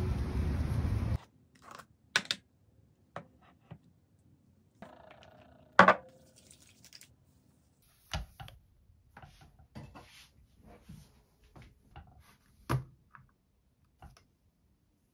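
Steady low rumble of street noise that cuts off about a second in. Then scattered small taps, clicks and knocks of a MacBook laptop being handled and opened on a desk. The loudest is a sharp knock about six seconds in, just after a short sliding sound.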